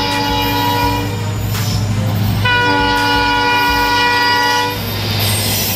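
Indian Railways WDP4D diesel locomotive sounding its horn in two long blasts: the first ends about a second in, the second runs from about two and a half seconds in until nearly the end. A steady low rumble from the train runs underneath.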